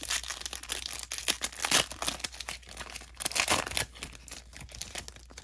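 The foil wrapper of a Panini Phoenix basketball card pack being torn open by hand, with crinkling and tearing that is loudest over the first four seconds and dies down near the end.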